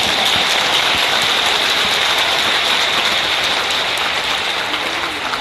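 Large stadium crowd applauding: dense, steady clapping from thousands of spectators, fading slightly near the end.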